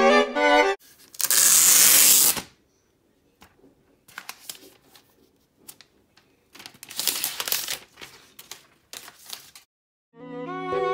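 Clear plastic protective film being peeled off the aluminium back of an iPad Pro: a long ripping rasp about a second in and another about seven seconds in, with crinkling and handling clicks between. Background music at the very start and again just before the end.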